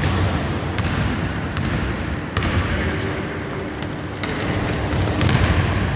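Basketball dribbled on a wooden court floor: sharp bounces about 0.8 s apart in the first half. In the second half come two long, high, steady squeaks.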